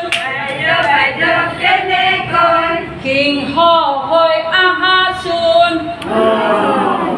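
A group of women singing a children's teaching song together, unaccompanied. Near the end the singing breaks into several voices talking at once.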